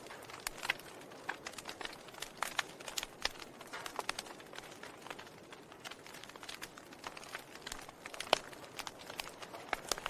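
Wood fire of burning logs in a fireplace, crackling with irregular small pops over a soft hiss, one sharper pop about eight seconds in.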